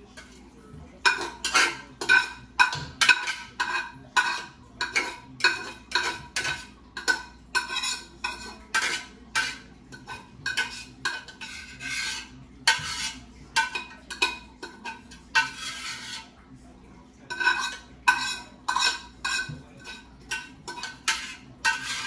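A spoon stirring and scraping around a cooking pot of curry chicken, in quick repeated strokes of about two a second, with a short pause about three-quarters of the way through.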